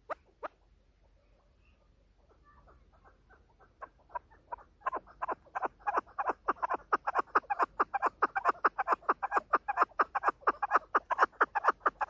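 Female chukar partridge calling: a run of short, sharp notes that begins faintly a couple of seconds in, grows louder, and settles into a fast steady series of about five calls a second.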